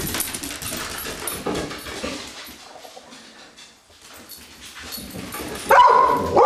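Dog panting and snuffling, then a loud, high-pitched cry near the end.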